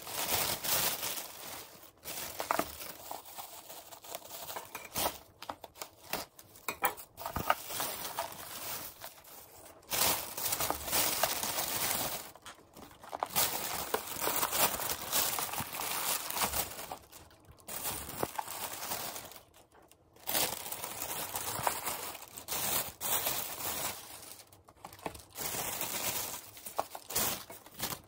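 Thin plastic carrier bag rustling and crinkling as it is untied and food containers are pulled out of it. The rustling comes in bursts with brief pauses.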